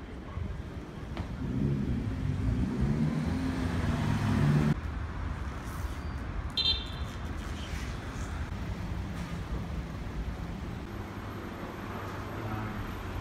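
City street traffic: a passing vehicle's engine swells for the first few seconds and cuts off abruptly, then a steadier low traffic rumble with a brief high-pitched beep partway through.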